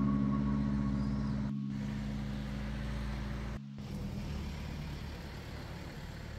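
A motor vehicle's engine running with a steady low hum, slowly getting quieter.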